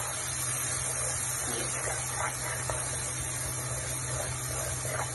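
Black-eyed beans and masala frying in oil in a pan, sizzling steadily while a spatula stirs and scrapes through them, over a steady low hum.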